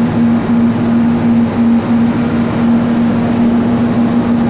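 Chairlift loading-station machinery running with a loud, steady hum, the bullwheel turning overhead.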